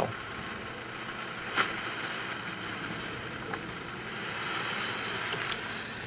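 Steam hissing out of the outlet end of home-built copper solar water-heating panels, the water inside them heated to boiling by the sun; a steady hiss with two sharp clicks.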